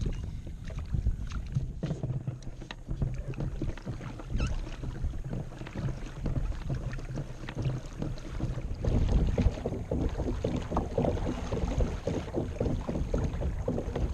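Wind buffeting the microphone over water lapping and splashing irregularly against a plastic kayak hull at sea, the splashing busier in the second half.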